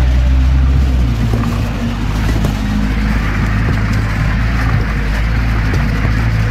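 Jeep engine running steadily as the vehicle drives off-road, a loud low rumble mixed with tyre and body noise and a few small knocks.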